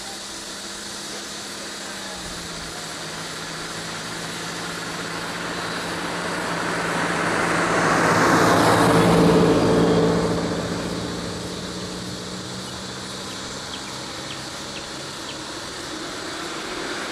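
Road vehicles with engines running. A steady idling hum sits under a vehicle passing close by, whose engine and tyre noise swells to its loudest about halfway through and then fades away.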